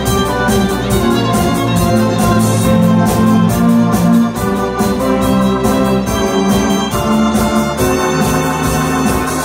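Live rock band playing an instrumental passage: electric guitars, bass guitar, violin and drums, with held chords over a steady drum beat.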